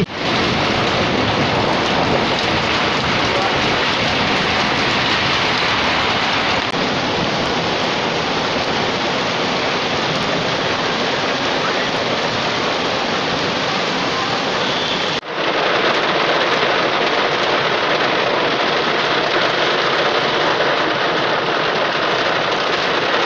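Heavy rain pouring steadily, an even hiss with a brief break about fifteen seconds in before it carries on slightly louder.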